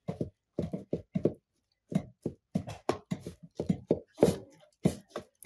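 Wooden pestle pounding cooked, dried-down beans and groundnuts in a clay cooking pot, mashing them into muduya: dull, irregular thuds, about three a second.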